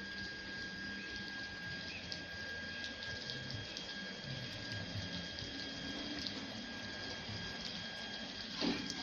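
Touchless car wash machine spraying water in a steady hiss, with a steady high-pitched whine over it and a brief thump near the end.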